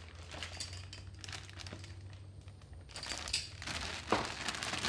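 A thin clear plastic bag crinkling and rustling as hands grip and pull at it around a cardboard toy box, in irregular crackles that grow louder about three seconds in.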